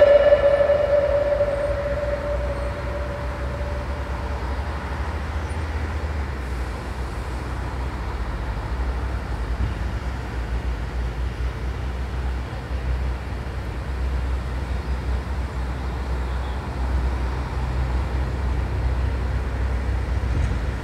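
A single ringing tone at the start that fades over about four seconds, over a steady low rumble that cuts off suddenly at the end.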